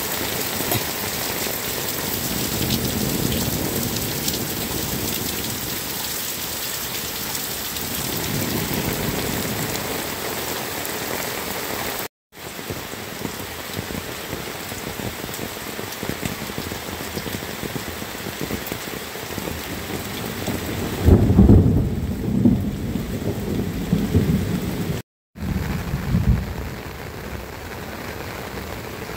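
Heavy tropical rain pouring down steadily, at first streaming off roof edges, then falling on an open rice field. A low rumble of thunder swells about two-thirds of the way in and is the loudest part. The sound drops out briefly twice.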